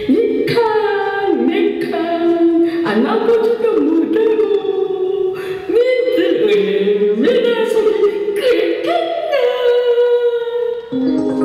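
Unaccompanied singing: long held notes that slide from one pitch to the next. Instrumental music comes in near the end.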